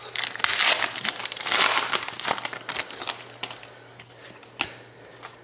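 A trading card pack's wrapper crinkling as it is torn open, dense for about three seconds. Then come a few light clicks and rustles as the cards inside are handled.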